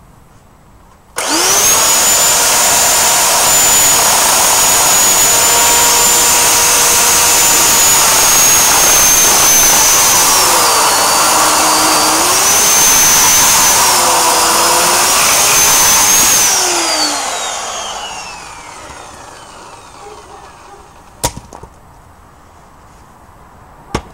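Corded electric chainsaw starting straight at full speed about a second in with a steady high whine, its pitch dropping twice as the chain bites into the log, then switched off and winding down over a couple of seconds. A single sharp knock follows near the end.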